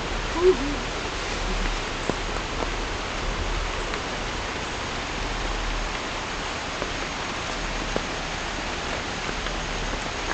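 Steady rain falling, an even hiss with scattered drop ticks. About half a second in there is one brief pitched sound.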